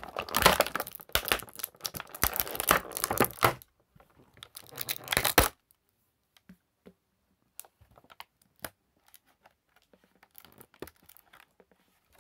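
Clear plastic packaging crinkling and tearing as an action figure is pulled out of it, dense and loud for about the first five seconds, then stopping. Afterwards only scattered faint clicks and rustles of handling.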